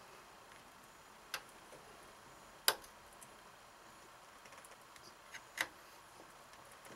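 Four sharp metal clicks from the armorer's wrench and torque wrench shifting on an AR-15 barrel nut as it is turned to line up its holes. The loudest comes a little over two seconds in, and two fall close together near the end.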